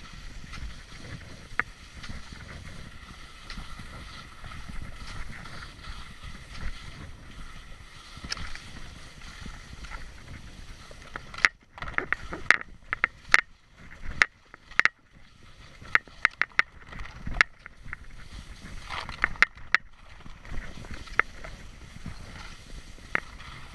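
Skis running over hard, rutted glacier snow, a steady scraping hiss. About eleven seconds in it drops away to several seconds of sharp clicks and knocks, and the ski noise picks up again about eighteen seconds in.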